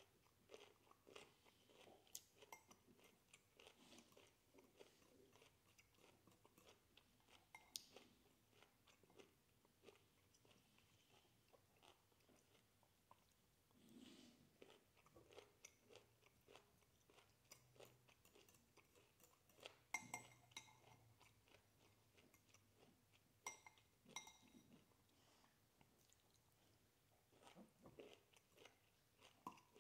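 A person chewing broccoli, faint and close, with soft crunching. Now and then a metal fork clinks against a ceramic bowl with a short ring.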